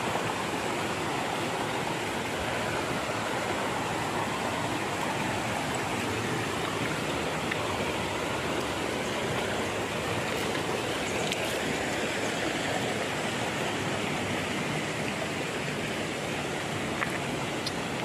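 Forest stream rushing over rocks in small cascades: a steady, unbroken rush of water.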